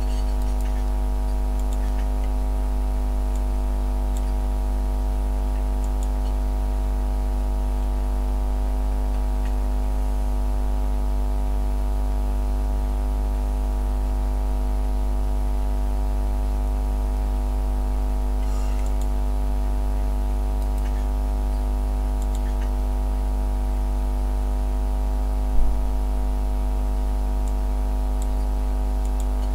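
Steady, unchanging engine drone heard from inside a vehicle cabin, a deep hum with several steady tones above it. A short click sounds once near the end.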